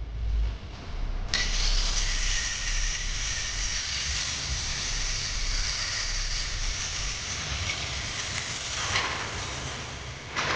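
Angle grinder cutting through the thin sheet-steel fender of a car body: a steady hiss with a whine that starts about a second in and stops near the end, followed by a few light clicks.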